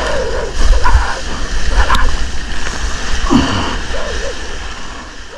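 Whitewater foam splashing and rushing around a surfboard's nose, with a heavy low rumble of water and wind buffeting the camera. A few short wavering, voice-like calls sound over it, and the whole sound fades out near the end.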